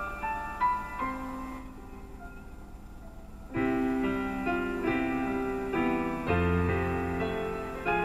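Piano music: a slow melody of single notes, joined about three and a half seconds in by fuller, louder chords.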